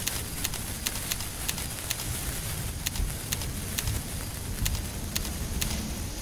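Handheld sparklers fizzing and crackling: irregular sharp pops, several a second, over a steady hiss and a low rumble.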